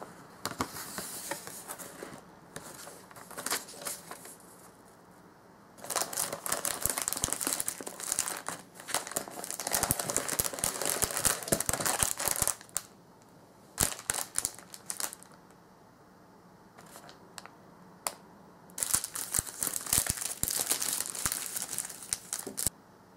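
Plastic packaging bags crinkling in several bursts as they are handled, with quieter rustles and a few sharp taps in the pauses between.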